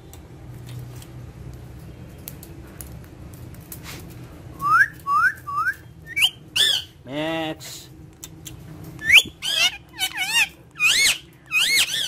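Indian ringneck parakeet whistling and chattering. After a few seconds of low room hum, three quick rising whistles come about halfway through, then a run of loud, swooping whistles and calls near the end.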